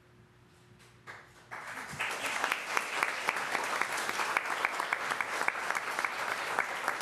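Audience applauding: clapping starts about a second in, builds quickly and then holds steady.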